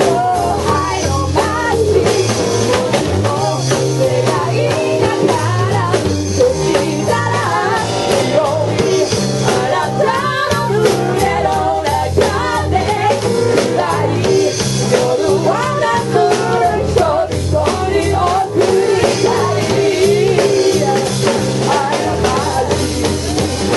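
Rock band playing live: a singer over drum kit, guitar and low bass notes, at a steady loud level.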